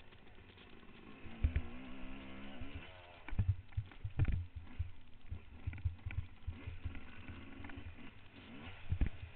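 Trail motorcycle engine rising and falling in pitch as it is ridden, with many irregular low thumps and knocks.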